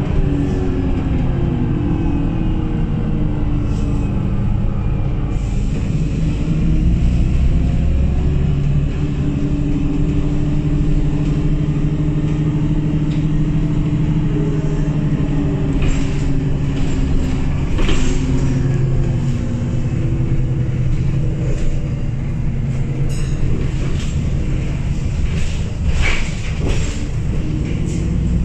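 Engine of a VDL double-decker bus with a Wright Pulsar Gemini body, running with a blown exhaust, heard from the upper deck as the bus drives. The engine note rises and falls several times, with occasional clicks and rattles from the bodywork in the second half.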